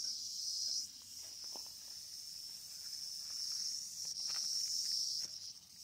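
Prairie rattlesnake rattling: a steady high buzz that swells and fades, loudest near the start and again about four seconds in. A few faint ticks are heard under it.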